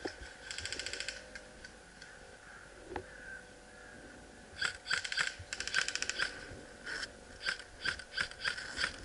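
Airsoft guns firing: a short rapid full-auto burst of clicking shots near the start, then more rapid bursts about halfway through and scattered single shots near the end.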